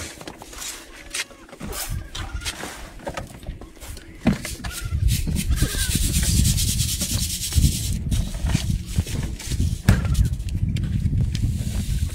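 Ground wheat being sifted through a wooden-rimmed hand sieve: the mesh is rubbed and shaken over a metal tray, with a scratchy hiss and small knocks. A low rumble joins in from about four seconds in.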